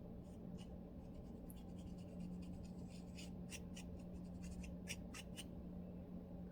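Lice comb scratching dry, flaky scalp through the hair: a run of short scratchy strokes that come thicker about three to five seconds in, over a low steady hum.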